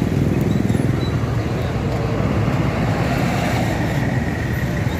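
Coach buses and motorcycles running close by as they move off in a convoy: a steady, loud, low engine rumble with traffic noise, and no single event standing out.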